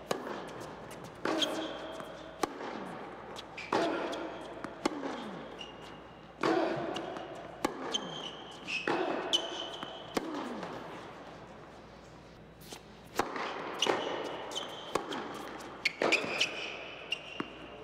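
Tennis ball struck by rackets and bouncing on an indoor hard court in a string of sharp, echoing pops, with short high squeaks of sneakers on the court surface between shots.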